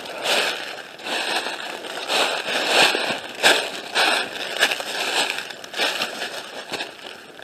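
Footsteps crunching through deep dry leaf litter, about two steps a second, in a steady walking rhythm.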